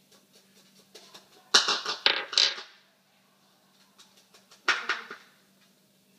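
Scraping and clinking of a spoon and bowls, as sticky melted marshmallow is moved into a bigger bowl. It comes in two bursts: a longer one about a second and a half in, and a shorter one a few seconds later, with a few light clicks before them.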